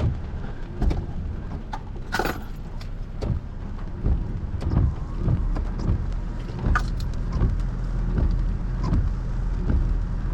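Strong, gusty wind from a severe thunderstorm buffeting the microphone as a heavy low rumble, with many sharp taps and clicks scattered throughout.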